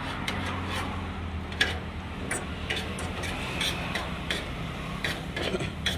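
Metal spoon and fork clinking and scraping against a plate while eating, a string of irregular light clicks.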